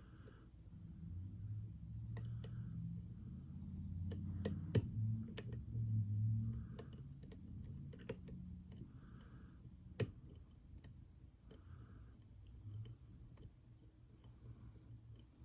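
Lock pick and tension wrench working a pin-tumbler challenge lock: scattered small metallic clicks and ticks as pins are lifted and set, with a sharper click about ten seconds in. A low rumble of handling runs under the first half.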